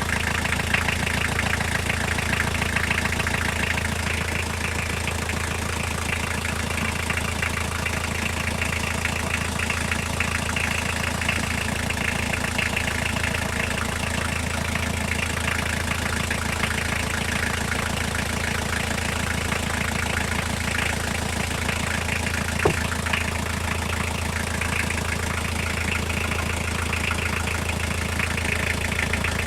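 Toyota diesel engine idling with a steady knock, a sound whose cause the owner cannot pin down. One brief sharp click sounds about two-thirds of the way through.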